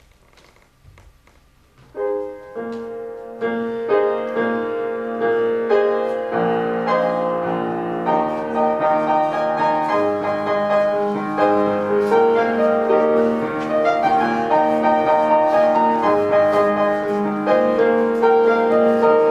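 Piano music that starts about two seconds in, after a few faint clicks.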